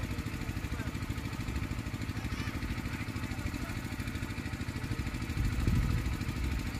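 A small engine idling steadily with a fast, even pulse, swelling a little louder about five and a half seconds in.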